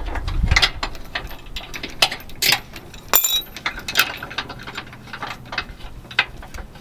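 Steel trailer safety chains clinking and rattling as their hooks are worked free of the truck's hitch: a run of irregular, sharp metallic clinks.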